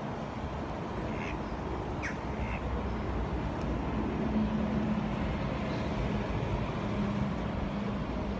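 Steady rush of a flowing river with a few short duck calls in the first few seconds. A low steady hum joins about halfway through.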